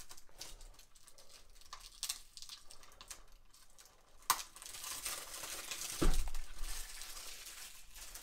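Clear plastic shrink wrap being picked at and peeled off a DVD case: scattered sharp ticks, then dense crinkling and tearing of the film in the second half. A dull knock comes about six seconds in.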